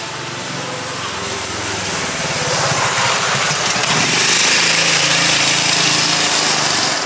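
A small vehicle engine running close by. It grows louder from about two seconds in, is loudest past the middle, and eases a little near the end, like a vehicle passing along the street.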